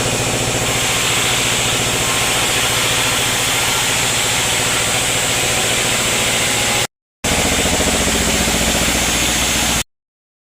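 Sawmill machinery running steadily, a hum with a strong hiss. It cuts out briefly about seven seconds in, comes back with a deeper hum, then stops abruptly near the end.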